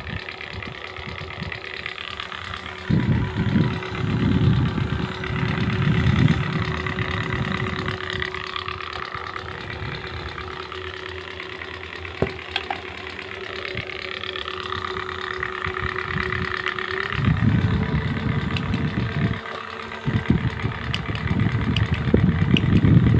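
A wall of electric fans running, with a steady hum that steps up in pitch about two-thirds of the way through; gusts of their airflow rumble on the microphone.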